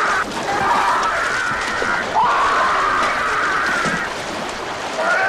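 A man screaming in pain as a shark bites into him: two long drawn-out cries, each rising sharply at the start and then slowly sagging.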